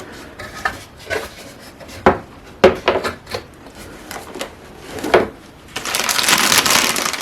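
Camcorder packaging being handled: scattered light knocks and taps, then from about six seconds in a loud, steady rustle of packaging.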